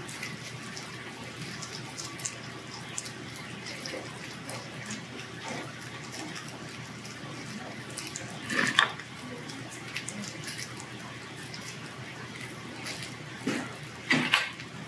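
Pork belly sizzling on a tabletop grill plate, a steady hiss, with soft eating noises and two short louder clatters about nine and fourteen seconds in.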